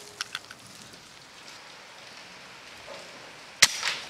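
Steady rain falling on the cattle shed, then about three and a half seconds in a single sharp crack from a .22 BSA Super10 PCP air rifle firing. A few short clicks sound near the start.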